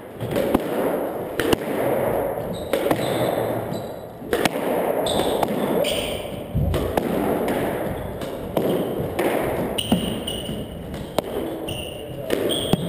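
Squash rally: the ball cracking off the front wall and the racquet strings roughly every second and a half, with short high squeaks of court shoes on the hardwood floor between shots.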